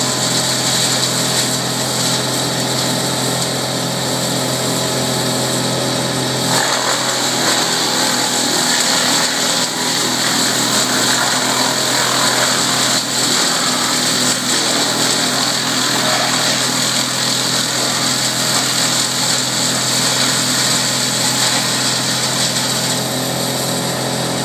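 Tow-behind wood chipper running at full speed, its engine note steady, with the sound turning rougher and busier about six and a half seconds in as it takes in wood and blows chips out of its chute into the truck.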